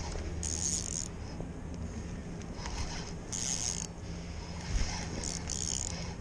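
Fishing reel working in short bursts of whirring and clicking, three times, over a steady low hum.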